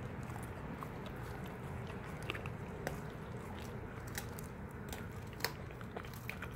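Renascence Bulldogge puppy chewing a whole raw tilapia: quiet, irregular crunches and clicks of teeth working through the raw fish and its bones.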